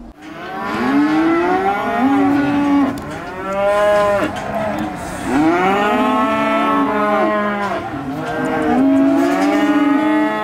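Cattle mooing: several long calls, one after another and overlapping, each rising and then falling in pitch.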